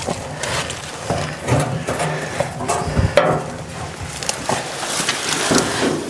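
Irregular knocks, scrapes and rustling from hands-on work at an old logging machine's engine compartment.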